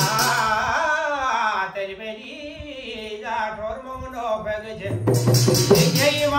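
A man singing a Kumaoni jagar devotional song in long, bending sung phrases, with a burst of beaten drum and percussion at the start and again about five seconds in.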